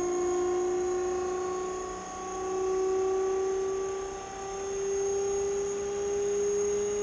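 AC electric motor running with a steady hum whose pitch creeps slowly upward, with a faint high whine above it.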